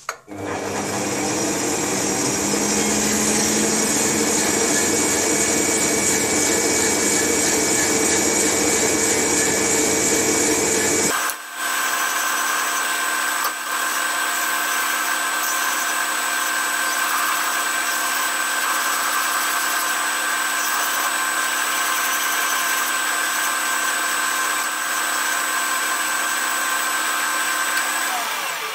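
Metal lathe running steadily with a gear whine, spinning a small brass ramrod pipe while a hand file is held against it. About eleven seconds in the sound changes abruptly: the low rumble drops away and a steadier whine remains.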